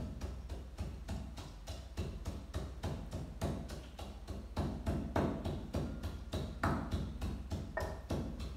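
Wooden pestle pounding in a mortar, a steady run of dull knocks at about four strokes a second, with a few heavier strokes in the second half.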